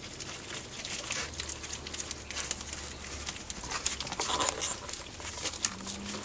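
A litter of four-week-old Pomeranian puppies eating canned puppy food together from one bowl: a busy run of quick, wet lapping and smacking clicks.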